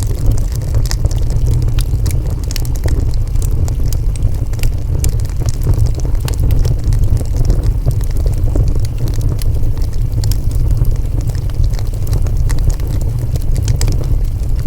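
Wood fire burning, with a steady low rumble under frequent sharp crackles and pops of burning wood.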